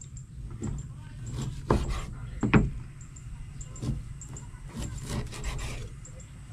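Large knife slicing through a slab of homemade bacon, the blade knocking against a wooden cutting board several times, loudest about two and a half seconds in.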